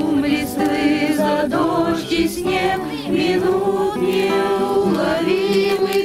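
A group of voices singing a Christian song in Russian together, with acoustic guitars strummed along.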